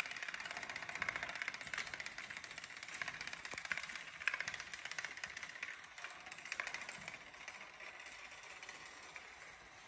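A chain of standing playing cards toppling one after another, a rapid, dense clatter of light clicks that thins out and fades over the last few seconds.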